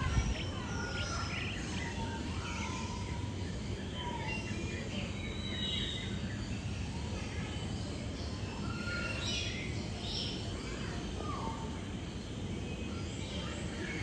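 Aviary birds giving scattered short chirps and whistles, several different calls at different pitches, over a steady low background hum. A brief low bump sounds at the very start.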